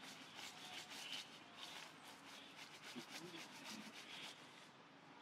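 Faint, irregular rustling and crackling of dry leaf litter.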